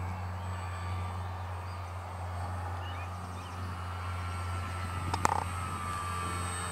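Electric motor and propeller of a radio-controlled Multiplex Fun Cub floatplane flying overhead, over a steady low drone. A sharp click comes just after five seconds in, and then the motor's whine rises in pitch.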